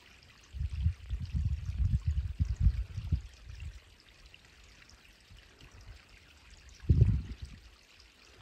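Small creek trickling down a rocky gully, a steady faint rush of water. Irregular low rumbles buffet the microphone from about half a second in to three and a half seconds, and again briefly about seven seconds in; these are the loudest sound.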